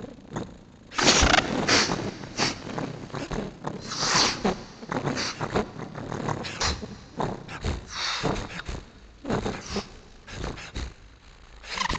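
A human voice making improvised, wordless mouth sounds, beatbox-like: irregular breathy bursts and clicks that start about a second in and come in uneven clusters.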